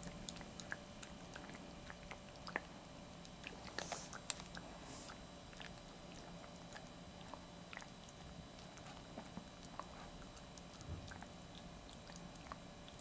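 Maltese dog gnawing and chewing a dog chew: faint, scattered crunches and clicks of teeth, with a few louder crunches around four seconds in.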